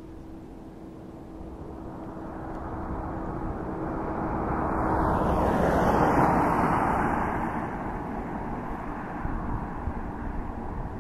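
A vehicle passing on the paved road: its noise swells to a peak about six seconds in, then fades, over a low rumble of wind on the microphone.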